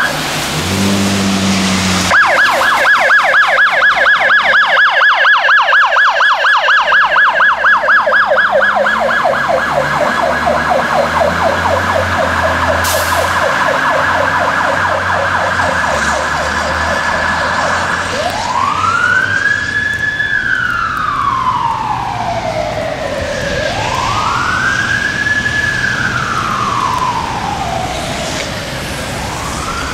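Fire rescue truck's electronic siren on an emergency response: a fast yelp starts about two seconds in, then past the middle it switches to a slow wail that rises and falls about every five or six seconds. A truck engine rumbles under the first couple of seconds.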